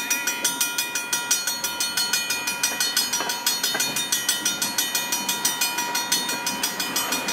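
Railroad crossing bell ringing in a rapid, even string of dings while a train of tank cars rolls past.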